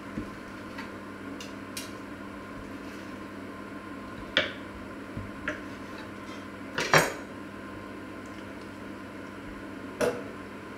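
Kitchen knife and carving fork knocking and clicking on a wooden cutting board while cooked meat is sliced. There are a few scattered sharp knocks, the loudest a double knock about seven seconds in, over a steady low hum.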